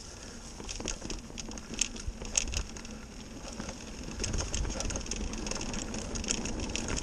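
Mountain bike tyres rolling over a dirt trail covered in dry fallen leaves: irregular crackling and crunching over a low rumble, growing louder about halfway through.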